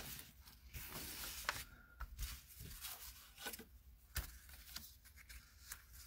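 Faint rustling and sliding of paper and cardstock being handled on a tabletop, with a few light clicks and taps.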